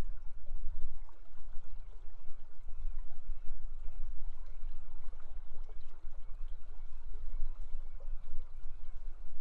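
River water flowing, a steady rush over a low, uneven rumble.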